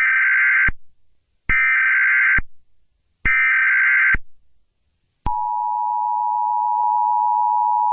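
Emergency Alert System alert: three short bursts of SAME header data, each just under a second with gaps between, then the two-tone attention signal starts about five seconds in and holds steady. It is the standard opening of an emergency alert broadcast.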